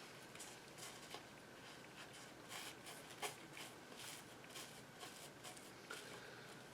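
Faint, irregular clicks and scratches of hands and small dissecting tools working on a bird carcass, close and quiet.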